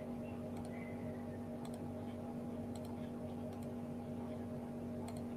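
Steady low electrical hum with a few thin tones over it, and about five faint, brief clicks scattered through it.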